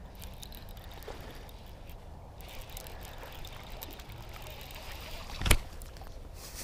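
Baitcasting reel being cranked with a low, steady whir while a small bass is reeled in, with faint splashing, and one loud short thump about five and a half seconds in as the fish is brought onto the bank.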